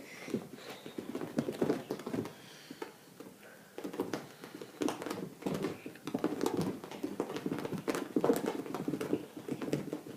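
Cats' paws scampering and skittering in quick, irregular taps and patters as they run around in circles, getting busier about four seconds in.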